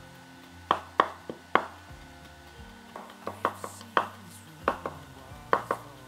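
Knife chopping on a cutting board: a dozen or so sharp, irregular knocks, some in quick pairs, over quiet background music.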